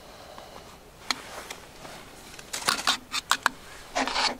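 Chopsticks scraping minced meat off a foam tray into a plastic bowl and working it into the chopped leek, with a quick run of clicks and taps against the bowl about halfway through and a short scrape near the end.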